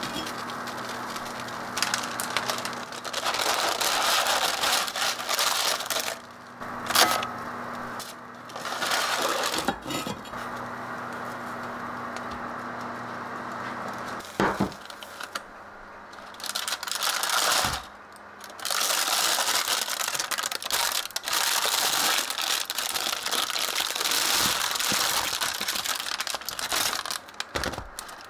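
Paper towels rustling and crumpling in hands handling a hot enamelled cast-iron pot, with a few sharp knocks and clinks. A low steady hum stops about halfway through.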